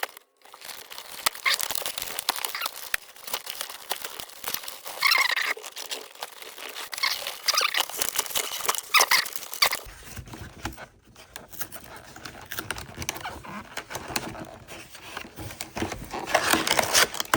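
Packaging of a Pokémon TCG binder collection box being unwrapped and opened: plastic wrap crinkling and tearing and cardboard rustling, with many small irregular clicks and scrapes and several louder crackly bursts.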